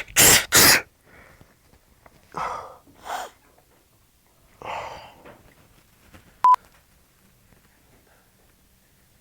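A man's loud, exaggerated prank sneezes: two in quick succession at the start, two quieter ones about two and a half and three seconds in, and another about five seconds in. A short, sharp electronic beep sounds once about six and a half seconds in.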